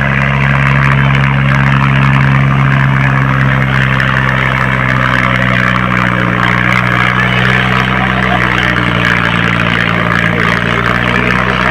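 Fiat 480 tractor's three-cylinder diesel engine running hard and steady under heavy load, dragging a disc harrow; its pitch eases slightly about eight seconds in.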